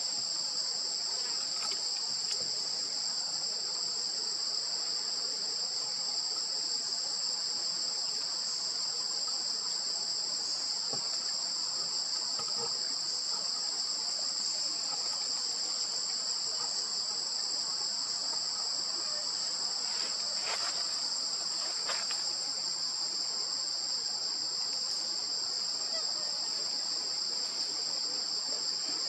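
A steady, shrill insect chorus, one unbroken high-pitched drone with a thinner, higher whine above it, not changing in level.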